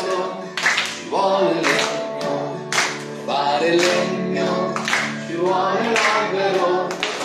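A children's song sung over musical accompaniment, with a group of children clapping its rhythm on the beat about once a second.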